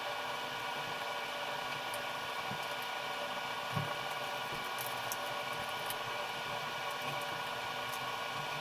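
A steady hum made up of several held tones, with a few faint taps and handling sounds.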